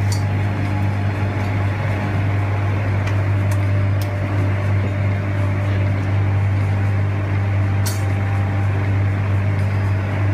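A loud, steady low hum with evenly spaced higher overtones, unbroken throughout, with a few faint clicks.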